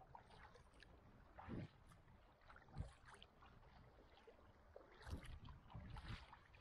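Quiet kayak paddle strokes: the blades dip and splash in the sea about four times, over a low wash of moving water.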